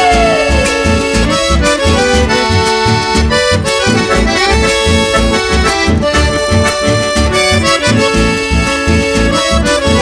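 Chamamé instrumental passage led by accordion over a steady, even bass rhythm. In the first second a held pitched line slides down and fades out.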